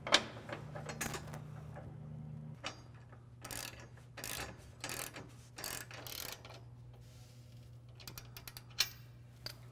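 Ratcheting wrench clicking as it tightens a bolt, in a run of short rasping strokes over the first six seconds, then a few lighter clicks near the end.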